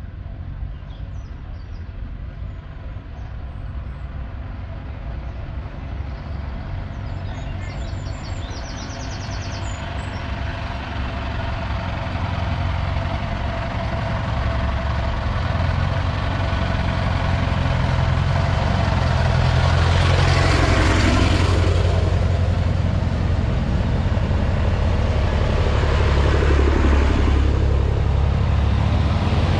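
Tractor engines on the lane drawing closer, their low engine note growing steadily louder as a tractor approaches. A few bird chirps sound about eight seconds in.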